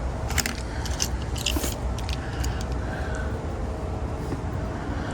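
Light clicks and clinks of a small diecast model car being handled on a tabletop, over a steady low hum.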